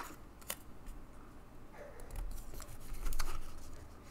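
Trading cards and rigid plastic top loaders being handled, giving a few light clicks and soft rustling. The clicks come about half a second in and around three seconds in.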